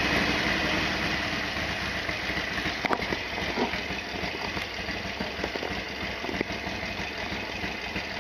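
Harley-Davidson Sportster XL1200R's air-cooled V-twin idling just after starting, a steady beat that eases slightly in level as it settles. A single sharp tick sounds about three seconds in.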